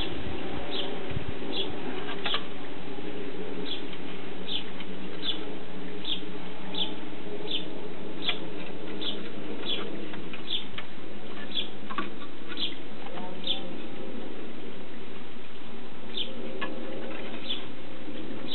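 A bird outdoors repeating a short high chirp about once every three-quarters of a second, pausing briefly near the end before chirping a few more times, over a steady low background hum.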